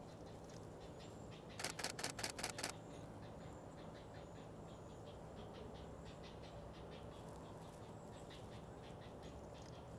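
Camera shutter firing a rapid burst of about eight frames in just over a second, about one and a half seconds in. Faint bird chirps sound in the background throughout.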